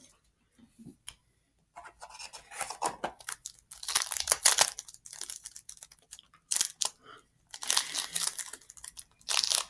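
Foil booster pack wrapper being torn open and crinkled: irregular crackly tearing and rustling bursts starting about two seconds in, coming and going with short pauses.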